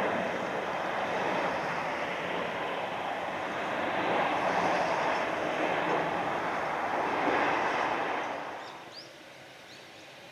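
Boeing 787 airliner passing overhead on final approach: a steady jet engine rush. The rush falls away about eight and a half seconds in, leaving a quieter background with a few short bird chirps.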